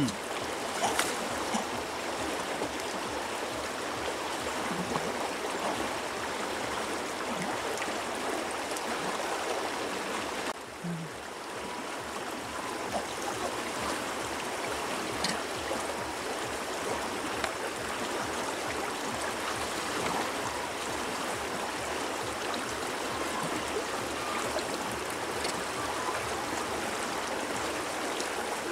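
Shallow river running over stones: a steady rush of water, dipping briefly about ten seconds in.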